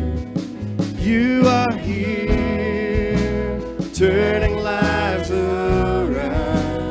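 Live church worship band playing a slow song, with voices singing long held notes over bass, guitar and drums.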